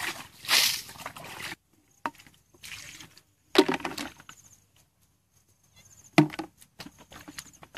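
Hands splashing and sloshing in a shallow muddy ditch while groping for fish, then a few separate short wet slaps and knocks with pauses between, about two, three and a half and six seconds in.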